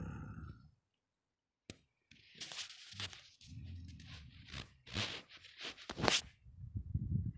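A person snoring loudly. A droning, pitched snore ends within the first second, and after about a second of silence a rough, rattling snore with crackling noises runs on.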